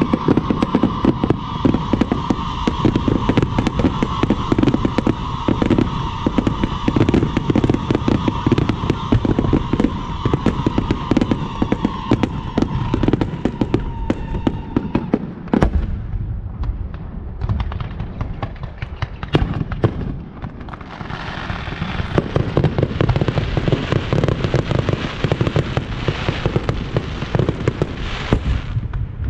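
Firecrackers and fireworks going off in a dense, continuous barrage of rapid cracks and bangs. The barrage thins for a few seconds after the middle, then picks up again with a busier crackle.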